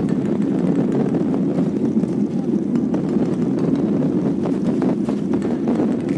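Steady low drone of a vehicle in motion, even in level throughout, with a few faint clicks over it.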